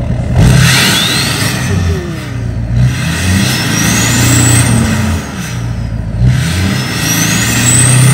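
L5P Duramax 6.6 L V8 turbo-diesel with an upgraded 64 mm turbo, free-revved three times, each rev bringing a whistle from the turbo that sweeps up in pitch. The last two whistles climb highest and are loudest.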